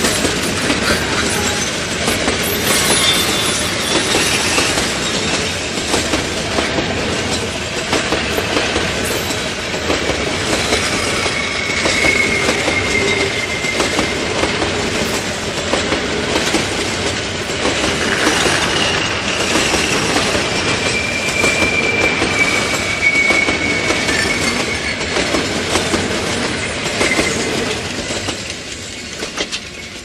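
Freight train rolling slowly past, its wagon wheels clattering over the rail joints, with a thin high wheel squeal twice along the way. The sound fades near the end as the train draws away.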